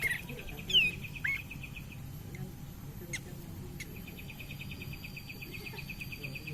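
Kapas tembak songbird singing: a fast chattering trill of about ten notes a second, broken near the start by two short sharp whistled notes and taken up again about four seconds in.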